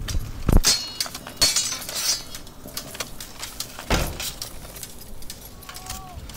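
A run of sharp clinks and crashes with a bright ringing, thickest in the first couple of seconds, then a heavy hit about four seconds in and scattered lighter clicks.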